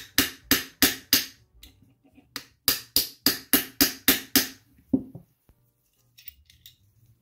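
Small brass-headed hammer tapping a trigger pin into an aluminium AR lower receiver, starting the pin through the trigger. Two runs of quick, sharp taps, about three a second, with a pause of about a second between them, then one last lighter tap about five seconds in.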